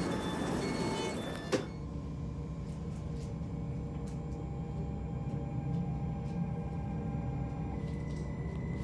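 Sliding door of an SOB Traverso Stadler FLIRT electric train shutting with a knock about a second and a half in. Then the traction inverter whines in steady tones as the train pulls away, over a low rumble, with a higher tone coming in near the end.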